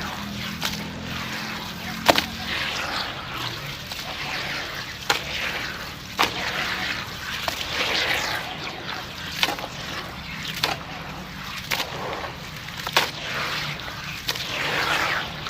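Dry sand-cement chunks dipped in water, fizzing and crumbling with a wet trickling sound and irregular sharp cracks as pieces break.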